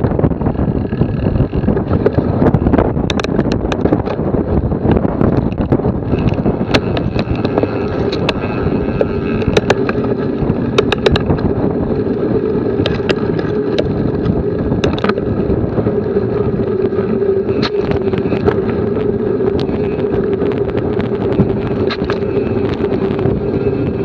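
Wind buffeting an action camera's microphone on a moving bicycle, over steady tyre and road noise, with frequent sharp rattles and clicks from the bike on the road surface. A steady hum comes in about seven seconds in.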